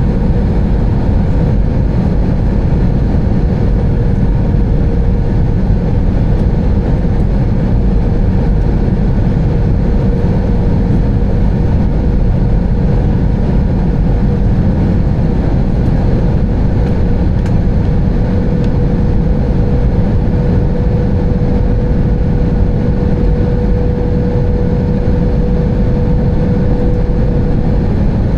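Airbus A320 cabin noise heard from a window seat: the steady, loud rush of engines and airflow, with a constant hum running through it.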